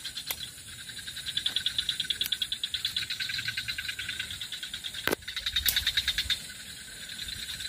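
A calling animal chorus pulsing rapidly and steadily, about ten pulses a second, with a few sharp clicks.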